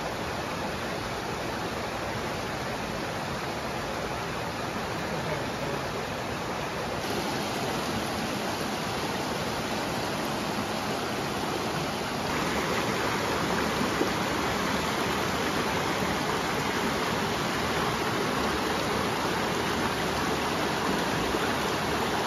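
A small mountain creek, running a little high, rushing and splashing steadily over rocks and small cascades. The sound gets slightly louder about halfway through.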